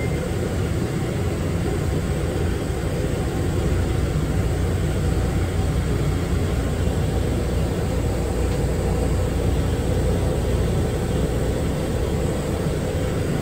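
Steady rumble and whir heard from inside a rubber-tyred automated people-mover car running along its concrete guideway.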